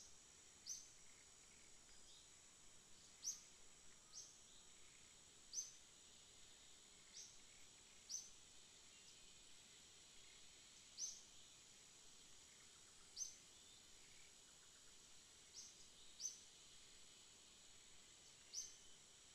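Quiet outdoor ambience: a steady high insect hum, with short high chirps repeating irregularly every one to two seconds.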